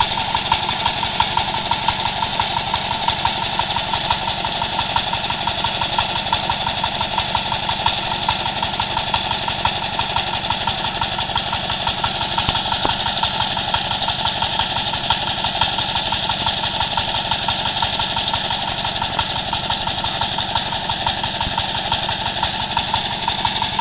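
Walking tractor's engine running steadily with a fast, even beat.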